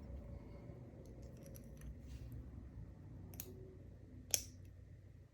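Small metal clicks of a lock pick and tension wrench working the pin tumblers of a brass padlock: a few faint ticks, then two sharper clicks about 3.4 and 4.3 seconds in, the second the loudest.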